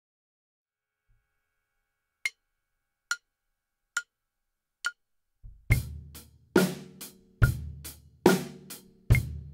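Metronome counting in at about 70 beats per minute: four clicks, the first higher-pitched as the accent. A drum kit comes in about five and a half seconds in on that tempo, playing a sixteenth-note fill: accented tom and snare strokes on each beat, with snare ghost notes filling the gaps between them.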